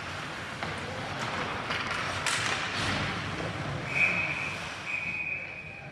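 Hockey referee's whistle blown about four seconds in, a short blast and then a longer one, stopping play. Before it, skates on the ice and a few sharp clacks of sticks and puck.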